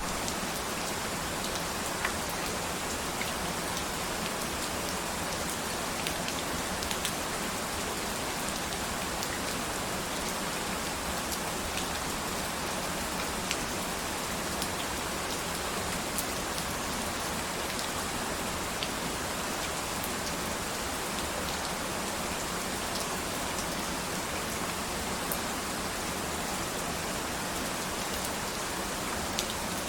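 Steady rain falling, an even hiss with occasional individual drops ticking out of it.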